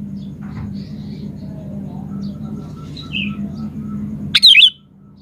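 Sooty-headed bulbul (kutilang) calling: faint scattered chirps over a steady low hum, then a loud, brief burst of sweeping call notes a little after four seconds in, after which the sound drops away suddenly.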